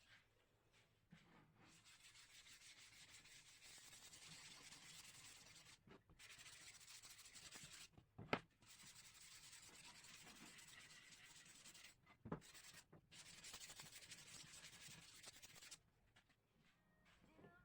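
Sandpaper rubbed by hand over teak wood: a steady scratchy hiss in long passes with short pauses, and two sharp knocks, the louder one about eight seconds in and another about twelve seconds in.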